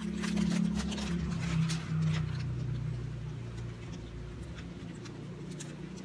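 Plastic glove packaging crackling and rustling in short clicks as clean examination gloves are taken out and handled, busiest in the first two seconds. A low droning hum runs underneath, slowly falling in pitch.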